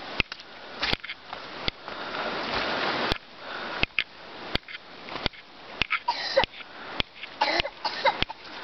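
Footsteps on a dirt forest trail littered with twigs and needles, a step roughly every 0.7 s, with the walker's audible breathing.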